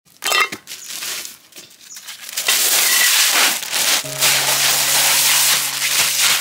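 Crushed ice poured out of a plastic bag into a clay pot: a loud, steady rattling hiss of tumbling ice that begins about two and a half seconds in, after a few soft clicks and rustles. Background music comes in about four seconds in.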